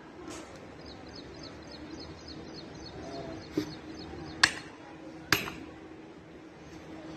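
Short-handled hoe striking the ground twice, sharp chopping blows a little under a second apart, in the second half. Before them, a bird chirps rapidly over and over.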